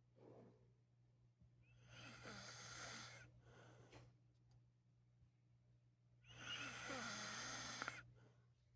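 A man snoring in his sleep, faint: two drawn-out snores about four seconds apart, over a steady low hum.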